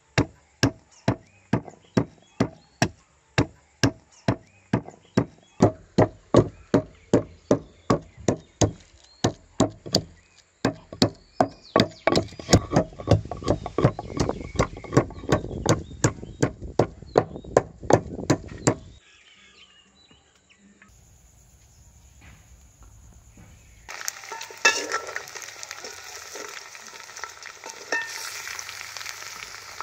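Wooden pestle pounding garlic cloves in a wooden mortar, steady knocks about two or three a second, followed by faster, denser strikes that stop about two-thirds of the way in. After a short lull, chicken pieces frying and sizzling in an aluminium wok as they are stirred with a metal spatula.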